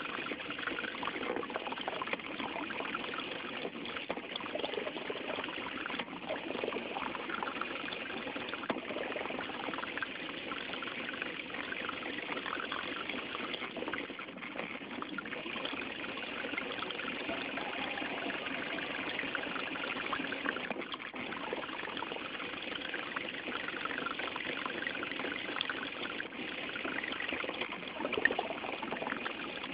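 Steady rush and splash of water along the hull of a small radio-controlled electric boat under way, heard from a camera mounted on the boat.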